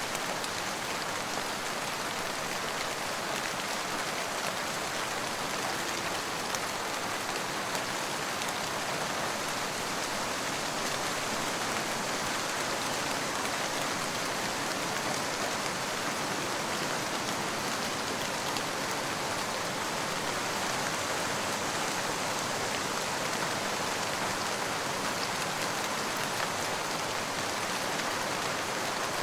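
Steady rain falling, an even hiss of many drops with faint scattered drop ticks.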